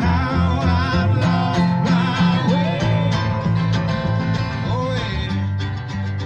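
A song with guitar and a singing voice over a steady beat, starting to fade out near the end.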